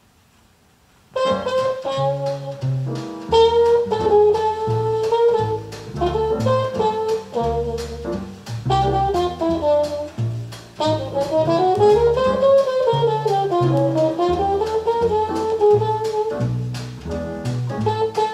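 Small-group jazz recording played over Elac Vela 404.2 loudspeakers and picked up in the room: a horn melody over walking bass and drums, starting about a second in.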